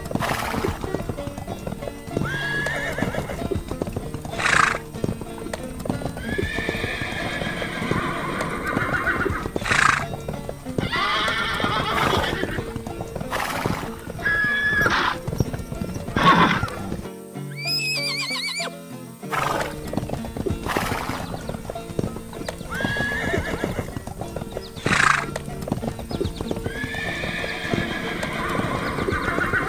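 Horse whinny sound effects, about five calls each a second or two long, over background music with clip-clop hoofbeats. Near the middle the music drops out briefly under a wavering high whistle.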